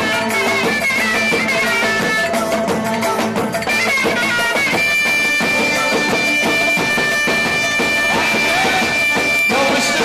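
Davul drum beating under a loud, shrill reed pipe playing a folk dance tune; about halfway through, the pipe holds one long high note before the melody resumes.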